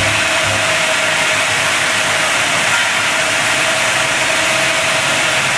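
Automatic vertical form-fill-seal powder packing machine running, a loud steady hiss with a faint steady tone underneath.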